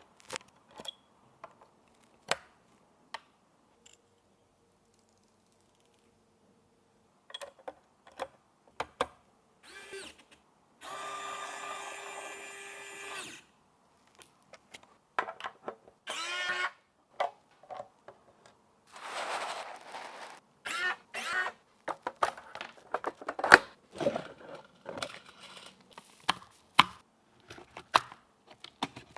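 Computer hardware being assembled: scattered clicks and knocks of parts and screws, with a small electric screwdriver whirring for a couple of seconds about eleven seconds in and briefly again near sixteen seconds. Handling gets busier with many quick clicks near the end.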